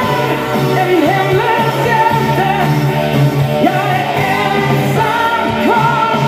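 Late-1980s Swedish pop-rock song: a woman sings the lead melody over a full band backing.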